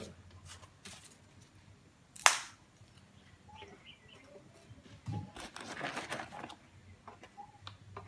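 Handling noises at a tin bee smoker being loaded and lit: one sharp, loud snap a little over two seconds in, then about a second and a half of rustling and scraping from about five seconds in.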